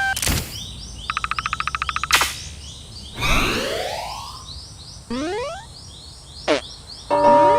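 A string of cartoon sound effects. There is a knock, then a rapid buzzing ring lasting about a second, a click, and a long rising glide. A few short rising chirps with clicks follow, and near the end a held electronic chord starts.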